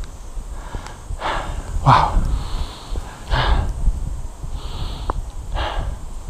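A hiker breathing hard, heavy breaths out and hissing breaths in every second or two, over a low wind rumble on the microphone.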